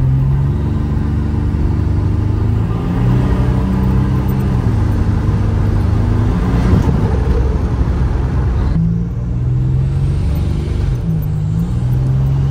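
Buick Grand National's turbocharged 3.8-litre V6 accelerating, heard from inside the cabin. Its pitch climbs and steps down at an upshift about five seconds in, and the throttle is eased off about nine seconds in.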